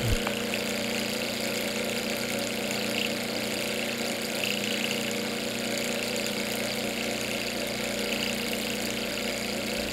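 Model walking-beam Stirling hot-air engine running steadily, its flywheel belt-driving a small 3-volt DC generator: an even mechanical hum that holds the same pitch and level throughout.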